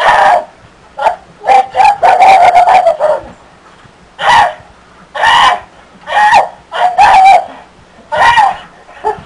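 A person's loud, shrill squawking screams in about ten short bursts, like a rooster or chicken being imitated.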